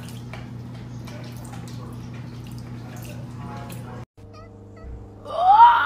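A cat at its water bowl paddling in water, with light dripping and splashing over a steady low hum. Then, about five seconds in, a cat gives a loud meow that rises and then falls in pitch.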